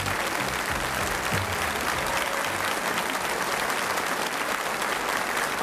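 Audience applauding steadily, with the band's last low notes dying away in the first second.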